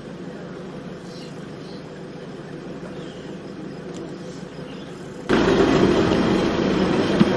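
Quiet open-air background with a few faint high chirps, then about five seconds in a sudden jump to the louder steady rumble of a vehicle engine idling, heard from inside the cab.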